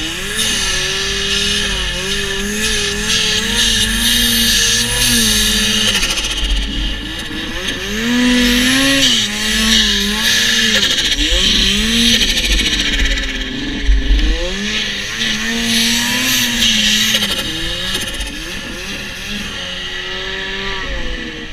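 Ski-Doo Summit XP snowmobile's two-stroke engine, fitted with a homemade turbo kit, revving up and down repeatedly as it rides through deep powder snow.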